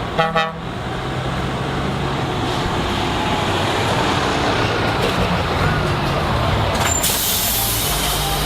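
Truck diesel engines running steadily, with a short two-part horn blast at the start and a hiss of compressed air from the air brakes starting about seven seconds in.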